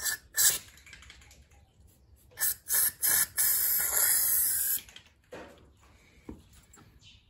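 Aerosol can of brake cleaner spraying into a corroded spark plug wire: several short hissing spurts, then one longer blast of about a second and a half.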